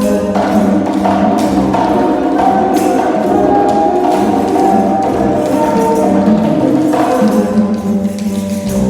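Percussion music: tapped, wood-block-like strokes and jingles over sustained pitched notes and a low bass line, playing continuously.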